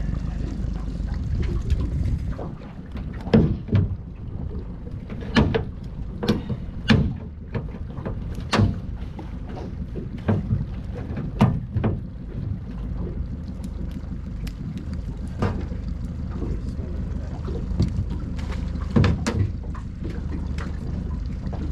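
Small boat's outboard motor idling with a steady low drone, with a dozen or so sharp knocks and clunks scattered irregularly over it.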